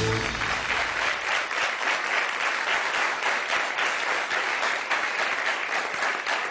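Studio audience applauding steadily, a dense patter of many hands clapping. The last of the theme music dies away in the first second.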